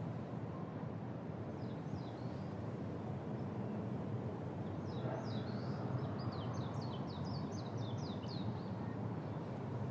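Small bird chirping: a few short high notes about two seconds in, then a quick run of a dozen or so descending chirps from about five to eight and a half seconds. Under it is a steady low background rumble.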